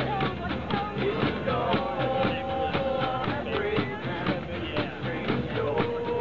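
A band playing an up-tempo rock song: a singer holding long notes over guitar and drums, with a fast steady beat.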